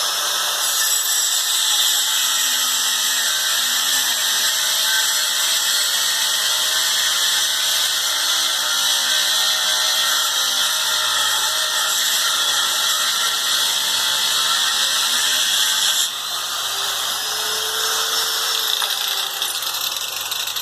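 Grinder grinding off a threaded rod, a loud, steady, high-pitched grinding that eases a little about sixteen seconds in.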